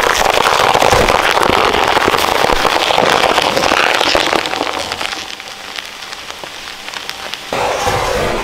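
Shredder crunching a Minion toy: a dense run of cracks and snaps. It eases off about five seconds in and picks up again near the end.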